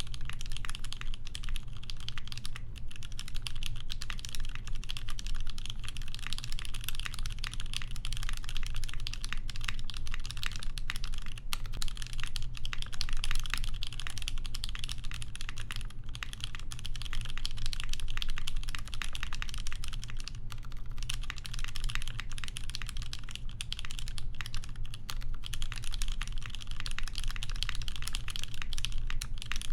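Continuous fast typing on a custom mechanical keyboard: a polycarbonate Lin Dolphin with lubed and filmed Cherry MX Vintage Black linear switches on an aluminium plate, under GMK keycaps. There are a few brief pauses in the typing.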